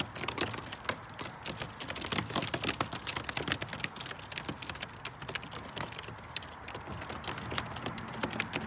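A flock of racing pigeons moving about at close range on a hard ledge, their feet and beaks making many quick, irregular taps and clicks.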